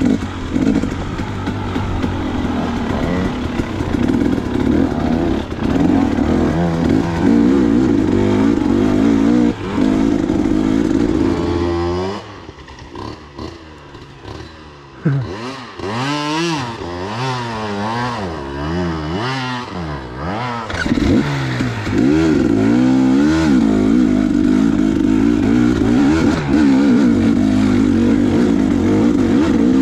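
KTM 250 XC two-stroke dirt bike engine running under load, then, about twelve seconds in, a quieter stretch of about nine seconds of short revs rising and falling as the throttle is worked at low speed, before it pulls steadily again for the rest.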